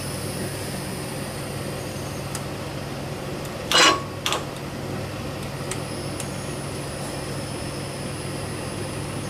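Steady low hum, then about four seconds in a short loud clack and a fainter one half a second later, as the starting circuit of a 1974 John Deere 112's Kohler engine is tried. The engine does not catch, which the owner puts down to a loose ignition switch.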